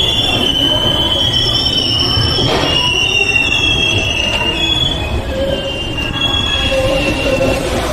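Train wheels squealing against the rails: several high, shrill tones that waver in pitch over the steady rumble of the running train.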